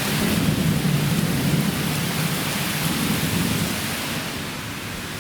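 Storm downpour pounding steadily, a dense hiss over a deep low rumble, easing off slightly over the last second or so.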